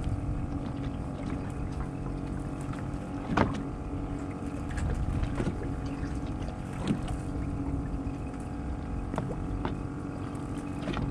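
Boat engine idling steadily, with a few short knocks, the loudest a few seconds in.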